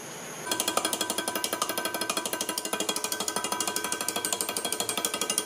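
Metal rapping tool striking a rapping bar set in a wooden pattern in a green-sand mould, a rapid, even rattle of strikes that starts about half a second in: rapping the pattern loose from the sand so it can be drawn.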